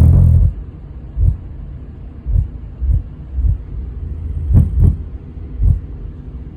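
Infinity BU-1 8-inch subwoofer playing the bass of a song. A loud held bass note stops about half a second in, then comes a string of separate deep bass thumps.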